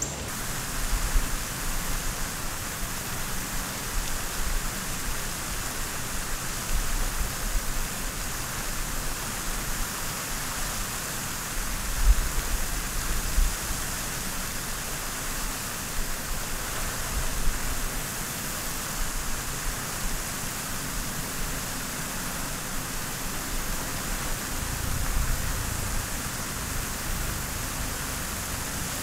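Steady outdoor ambient hiss, like distant running water, with a few brief low rumbles.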